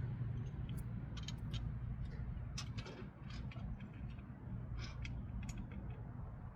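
Scattered light metallic clicks and ticks as bolts are worked with a hand wrench, over a steady low hum.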